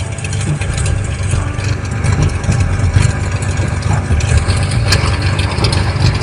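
Small agricultural aircraft's engine idling, a steady low drone with no change in speed.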